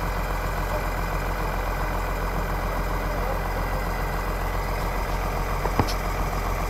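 Hitachi crawler excavator's diesel engine idling steadily, with one short click near the end.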